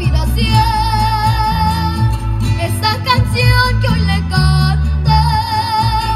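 A girl singing a slow ballad into a microphone over accompanying music with a bass line, holding long notes with vibrato.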